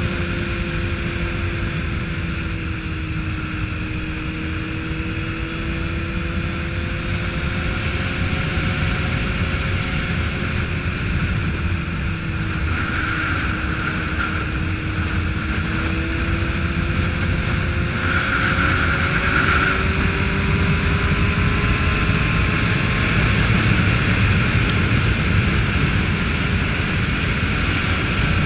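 Motorcycle cruising on the road: the engine runs at a steady speed, its pitch drifting gently up and down and rising a little past the middle, under a constant rush of wind.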